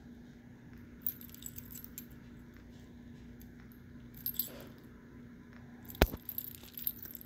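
Metal bracelet chain and clasp jingling and clicking against a heap of strung faux pearls and beads as the jewelry is handled, in a few scattered bursts. The loudest is a single sharp click about six seconds in. A faint steady hum runs underneath.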